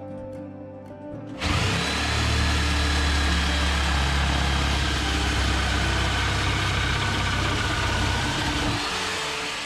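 Electric jigsaw cutting through a pine 2x4. The motor starts about a second and a half in, runs steadily through the cut for about seven seconds, and stops near the end.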